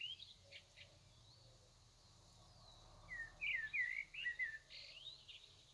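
Small songbird chirping in short quick calls: a few at the start, then a longer run of chirps about three seconds in.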